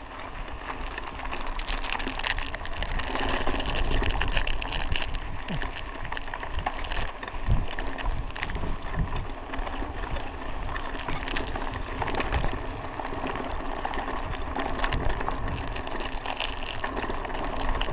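Mountain bike rolling over a dirt road: tyres crunching on the loose surface and the bike rattling with many small clicks, over a steady low rumble.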